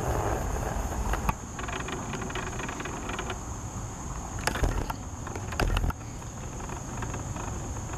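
Steady low rumble of distant road traffic under a continuous high-pitched insect drone, with three brief knocks: one just over a second in, two in the second half.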